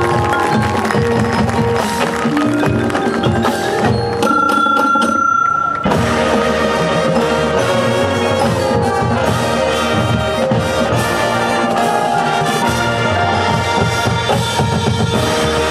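High school marching band playing, with brass and a drumline. About four seconds in the ensemble thins to one held high note, and the full band comes back in sharply about two seconds later.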